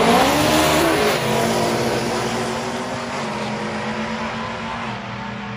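A supercharged LT4 V8 in an old-body-style Chevy pickup with a 10-speed transmission, racing an all-wheel-drive Honda Civic at full throttle down the drag strip. The engine pitch dips and climbs again in the first second as a gear changes, and the sound fades steadily as the vehicles pull away.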